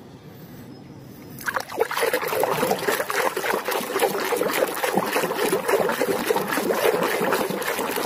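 A hand swishing and sloshing a plastic toy through muddy water in a plastic tub to wash the mud off. It starts about a second and a half in, as a continuous run of small splashes.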